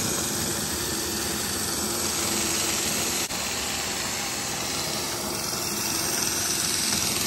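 Cordless drill running steadily, spinning a starter motor's armature and Bendix drive while a tool is held against the armature to clean it. The sound drops out for an instant about three seconds in.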